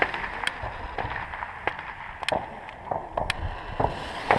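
Scattered sharp pops of firecrackers going off in the distance, about one a second, over a low steady background. Near the end a lit fuse starts to spark and sputter.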